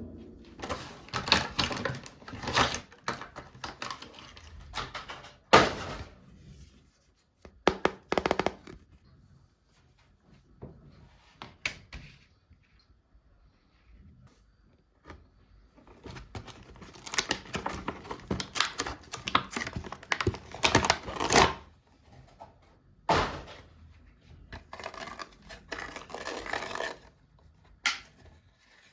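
Toys and their plastic packaging being handled: irregular knocks, clicks and rustling in bursts, with a few pauses where it goes almost quiet.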